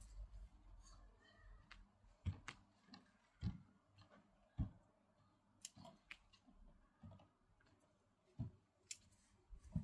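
Garden plants being cut by hand: a series of sharp, irregular snips and clicks, about nine in ten seconds, the strongest with a soft thud beneath.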